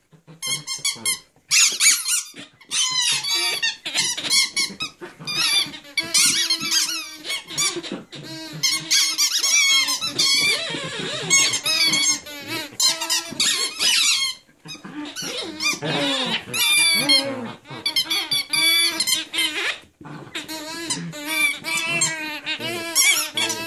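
Squeaky dog toys squeaking over and over in quick runs of high squeaks, with short pauses between runs, as a Sheltie puppy bites and tugs at them.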